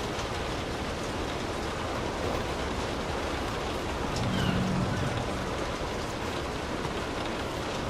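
Light rain falling on a car, heard from inside the cabin as a steady hiss. A brief low rumble swells and fades about four seconds in.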